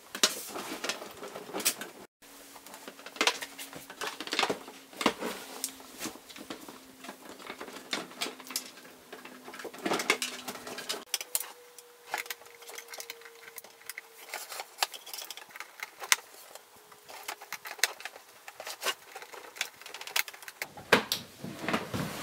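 Hands working a plastic-cased APC CS-500 UPS and its power cords into a shelf cubby: irregular clicks, knocks and light clatter of plastic, with rustling cords in between. A faint steady hum runs underneath.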